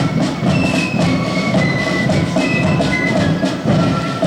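Marching flute band playing: a high flute melody over beating drums.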